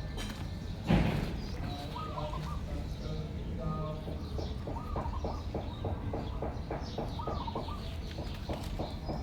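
A quick run of short, high, arched animal calls, about three or four a second, after a few scattered ones. A single loud thump comes about a second in.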